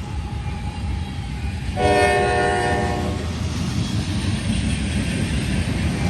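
Freight train led by GE AC4400CW diesel locomotives running past with a steady low rumble. About two seconds in, one chord blast of the locomotive air horn sounds for just over a second.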